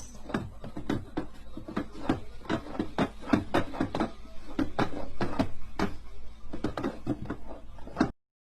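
A rapid, irregular series of sharp taps, several a second, that stops abruptly near the end.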